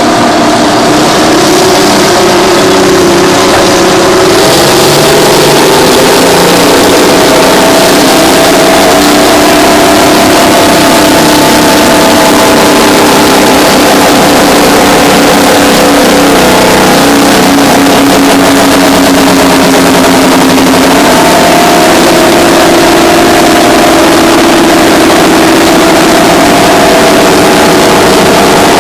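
Twin Detroit Diesel 6-71N two-stroke diesel engines of a Terex 82-80 bulldozer running hard under load while pushing scrapers, their pitch rising and falling as the load changes. Other heavy diesel engines run at the same time.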